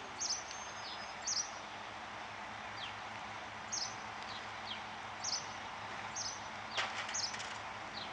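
Small birds chirping: short high chirps every second or so, with a few quick falling whistles, over a steady background hiss. A short clatter comes about seven seconds in.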